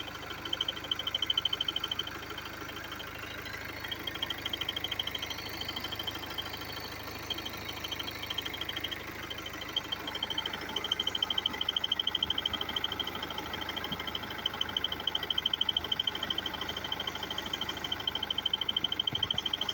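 BMW F30 320d four-cylinder turbodiesel engine running at idle with an abnormal high-pitched noise, a rapid pulsing tick or chirp over the engine's hum that fades briefly a few times.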